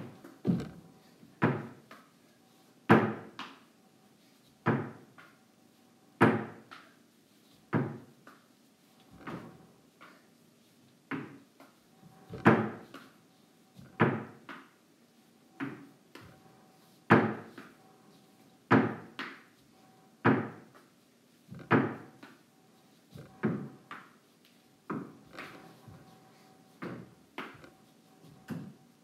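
A small ball thrown against a wall over and over: sharp thuds about every second and a half, many in quick pairs, each ringing briefly in a large timber-lined room.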